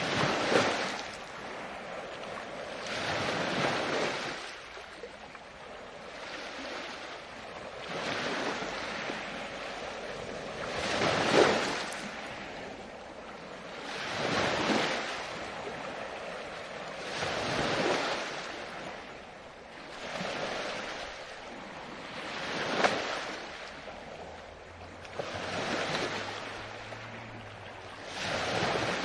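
Ocean waves breaking and washing ashore in a steady rhythm, each surge swelling and falling back about every three seconds.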